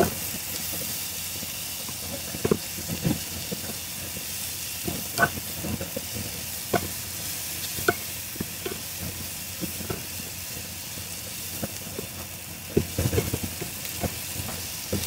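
Onions and mushrooms sizzling in a frying pan, with a steady hiss and a spatula now and then knocking and scraping against the pan as they are stirred, most busily near the end.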